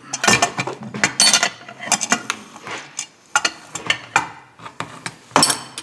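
Metal hand tools clinking and clicking against a chainsaw crankcase and crankshaft as the crank is being fitted: irregular sharp knocks and rattles.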